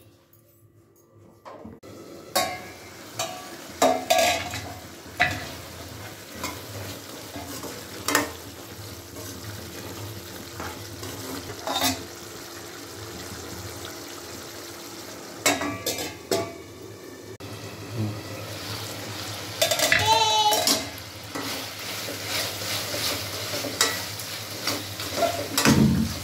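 Mutton fry sizzling and simmering in an aluminium kadai while a metal ladle stirs it, knocking and scraping against the pan every few seconds as the cooking liquid boils down.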